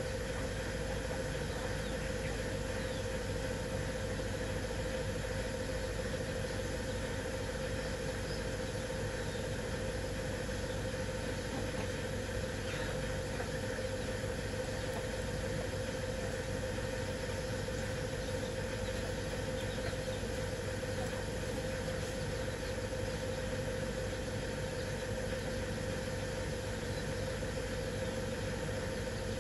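Steady mechanical hum of an unseen running motor or engine, unchanging throughout with a constant mid-pitched tone over a low rumble. A few faint high peeps of chicks come through now and then.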